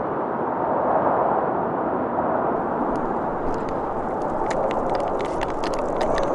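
Wind blowing hard across the microphone in a snowstorm, a steady rushing noise. From about halfway in, irregular crisp crunches of footsteps on packed snow come through.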